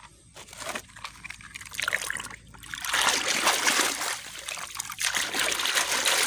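A few light plastic clicks, then from about three seconds in, flowing water splashing loudly over a hand and a muddy plastic toy tractor being rinsed in it.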